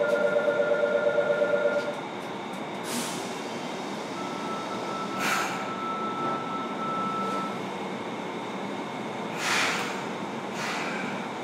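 Inside a Fukuoka City Subway 1000N series car: a loud pulsing two-tone chime for the first two seconds, then the car's steady rumble with a faint steady tone and several short hisses, the loudest near the end.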